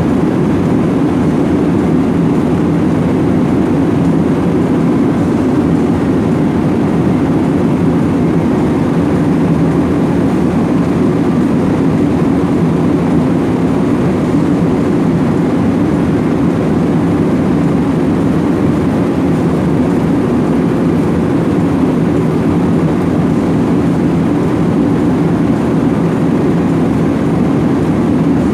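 Steady cabin noise of a jet airliner in flight: an even, low rush of engine and airflow noise that does not change.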